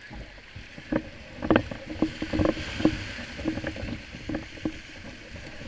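Surf hissing around a kayak as it rides breaking waves in to the beach. Irregular knocks and slaps of water and gear against the hull come throughout, the loudest about a second and a half in and again near three seconds.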